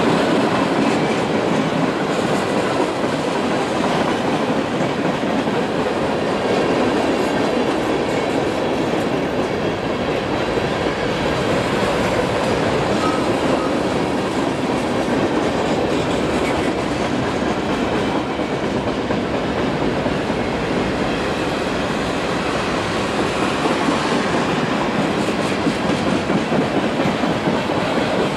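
Freight train cars (empty bulkhead flatcars and boxcars) rolling past close by: a steady, loud noise of steel wheels running on the rails.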